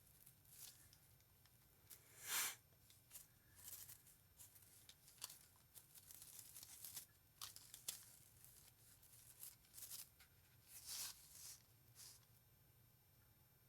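Faint, scattered rustling and crinkling from craft materials being handled: a string of short, light handling noises, the loudest about two seconds in and again about eleven seconds in.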